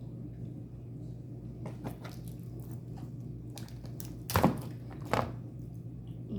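Seafood being eaten by hand: a few faint clicks, then two sharp cracks about four and five seconds in, the first the loudest, over a steady low hum.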